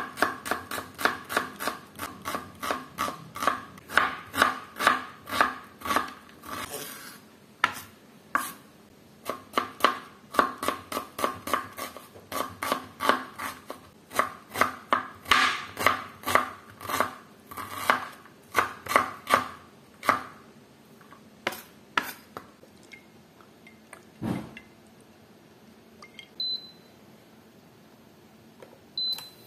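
Rapid, even knocks of a kitchen utensil on a hard surface, about three to four a second, each with a short ring. They stop about twenty seconds in, and a few scattered knocks follow.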